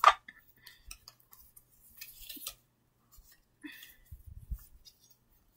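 Scattered small clicks and taps, the loudest a sharp click at the start, with a short papery rustle about two seconds in and a few dull bumps a little after four seconds: a cardboard trading-card box and cards being handled.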